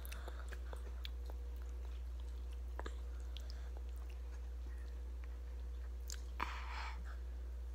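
A child's mouth close to the microphone while eating yogurt: soft wet lip smacks and small clicks, with a short breathy rush about six seconds in, over a steady low hum.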